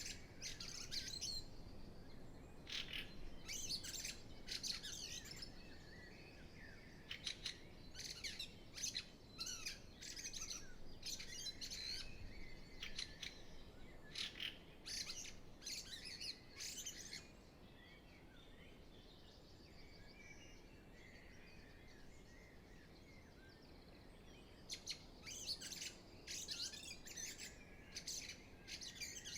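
Spring dawn chorus: many songbirds singing at once, with rapid overlapping chirps and trills over a faint low hiss. The song is busiest at first, thins to quieter, lower warbling for several seconds past the middle, and grows busy again near the end.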